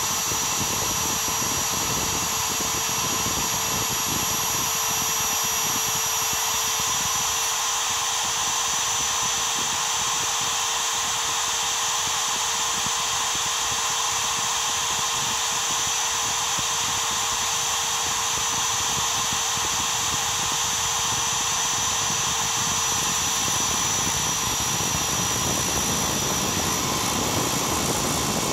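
Trim router spindle on a Mostly Printed CNC running at high speed while a two-flute up-cut end mill takes a shallow finishing pass in thin steel sheet: a steady high whine over a cutting hiss. A lower tone under it fades out near the end.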